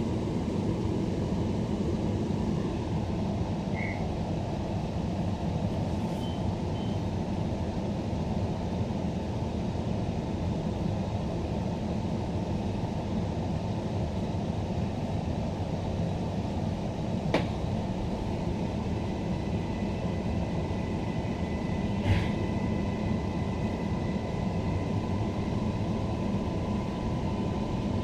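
Cabin noise inside a Bombardier-built Queensland Rail NGR electric multiple unit: a steady hum of air conditioning and running gear, with two sharp knocks about two-thirds of the way through. A faint steady whine comes in as the train starts to pull away from the platform.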